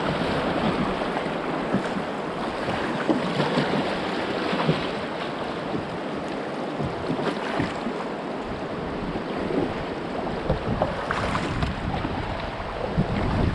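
Fast river current rushing around a kayak running a riffle, with paddle blades splashing in and out of the water now and then. Wind buffets the microphone, more strongly in the second half.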